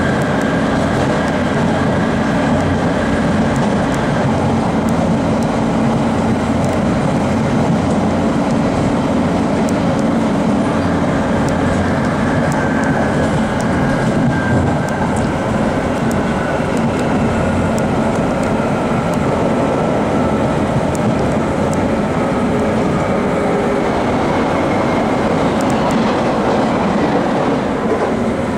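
Interior sound of a London Underground Jubilee Line 1996 Tube Stock train running on open track, heard from inside the carriage. It is a steady rumble of wheels on rail and running gear, with scattered clicks from rail joints and a faint motor whine that rises and falls in pitch.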